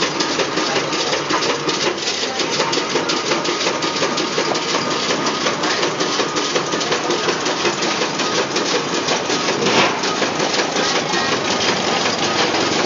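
Incense-stick-making machine and its automatic bamboo-stick feeder running, with a steady, rapid mechanical clatter.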